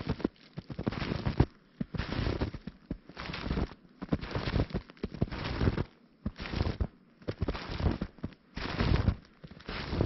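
Footsteps crunching in fresh snow, a slow walk at about one step a second, each step a crackly crunch.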